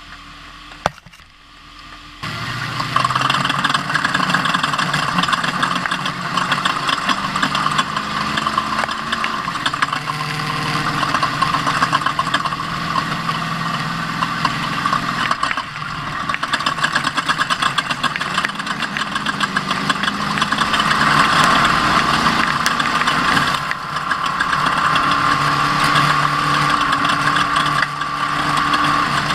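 Ford Ranger off-road race truck's engine running while driving, its pitch stepping up and down with the revs under a steady rushing noise. It comes in abruptly about two seconds in, after a single click.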